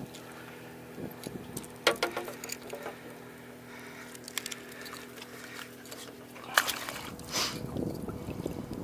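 Small flounder being unhooked by hand, with a few sharp clicks and rattles of the hook and lure. Near the end the fish is dropped back and splashes into the water.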